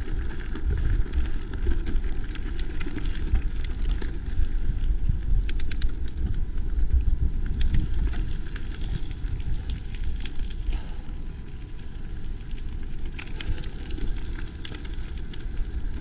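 Mountain bike riding over a rough track: a steady low rumble of wind and ground on the microphone, with scattered clicks and rattles from the bike.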